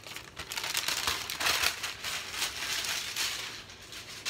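Parchment baking paper crinkling and rustling as roasted onions are pushed and shaken off it into a pot, fading near the end.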